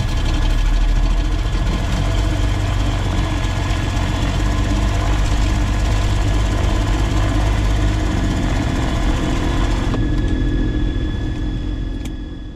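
Piston engines of a twin-engine Cessna 340 idling loudly and steadily on the ground, a deep even rumble with hiss above it. About ten seconds in the hiss thins out while the rumble continues.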